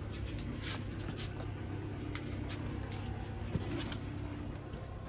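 Handling noise from a phone being moved around a car door and cabin: scattered soft clicks and rubbing over a steady low rumble.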